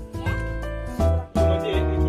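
Background music: held instrumental notes over a deep bass that comes in strongly about a second in.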